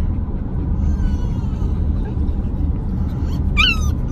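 A boxer dog whimpering: a faint high whine about a second in, then a louder, wavering whine near the end, over the steady low road rumble inside a moving car.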